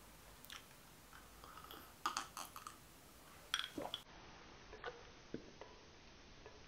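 Quiet room with a few faint short clicks and mouth sounds of a man drinking from a glass, in two small clusters about two and three and a half seconds in.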